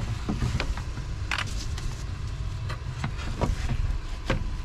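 Scattered clicks and light knocks from gloved hands working the plastic hose connector and plug under a car's coolant reservoir, over a steady low rumble.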